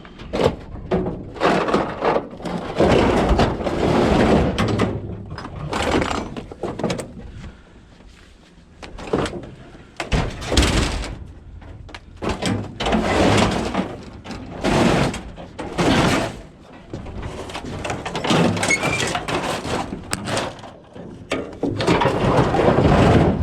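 Metal vending machine being shoved and dragged out of a trailer: a string of irregular metallic scrapes and thuds with short pauses between them.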